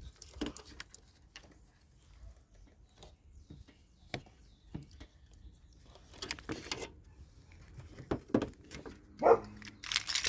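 Scattered clicks, knocks and rustling of hands working at a car's headlight wiring, plugging in a headlight connector, with a louder clatter at the very end.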